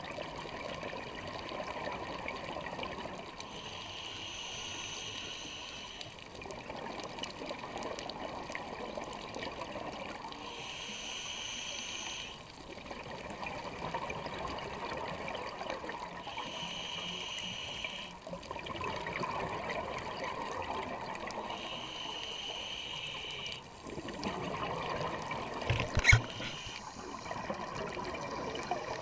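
Scuba diver breathing through a regulator underwater: a short hissing inhale about every six seconds, each followed by several seconds of bubbling as the breath is exhaled. Near the end comes a single sharp knock, the loudest sound.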